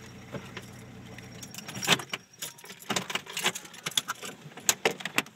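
Inside a car, the low running hum drops away about a second and a half in, followed by a run of sharp metallic clicks and jangles.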